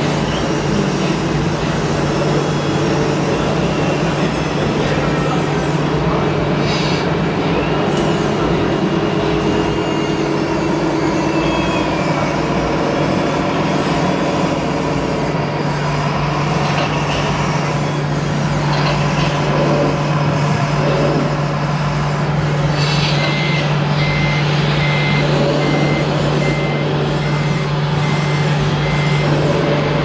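Radio-controlled model MAN tipper truck running with a steady low drone while its dump body tips up. About three-quarters of the way in, a reversing beeper starts, beeping a little over once a second.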